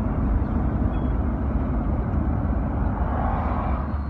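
Steady road and engine noise of a car driving along, heard from inside the cabin: a continuous low rumble with tyre hiss.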